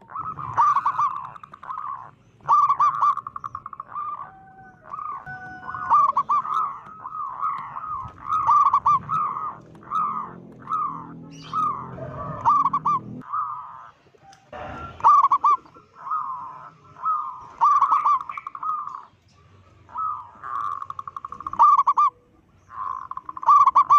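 Zebra dove (perkutut) cooing: repeated phrases of quick staccato coos, each a second or two long with short gaps between them.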